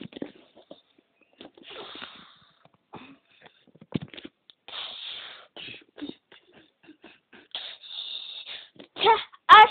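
Breathy hissing noises close to the microphone, with scattered small clicks and knocks between them. A child starts singing near the end.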